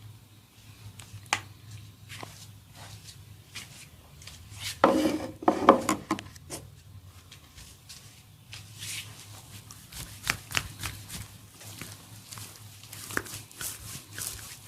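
Hands working on an oiled head: scattered sharp taps and clicks, with a louder burst of rubbing about five seconds in that lasts a second or so.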